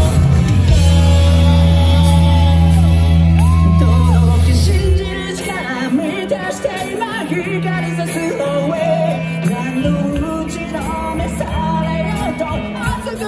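Live rock band playing loud and full, then dropping to a much quieter passage about five seconds in, where voices sing and shout over sparse backing.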